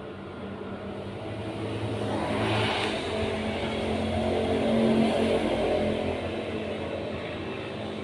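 A motor vehicle engine running steadily, growing louder to a peak about five seconds in and then fading.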